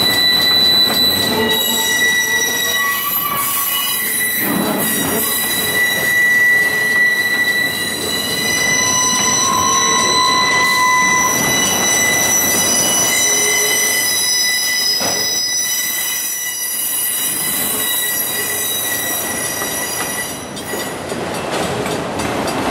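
Freight train of autorack cars rolling past, their steel wheels squealing in several steady high-pitched tones that come and go over the rumble of the cars.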